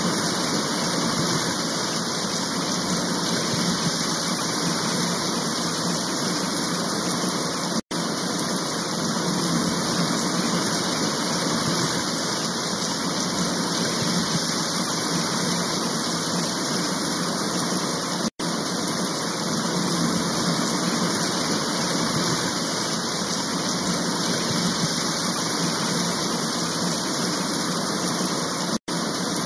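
Steady rushing noise of fast muddy floodwater pouring through streets, cut off for an instant three times.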